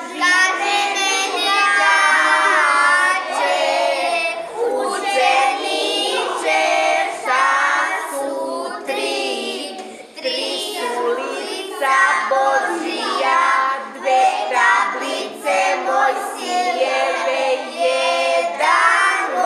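A small group of five young children singing a song together, phrase after phrase with short breaths between.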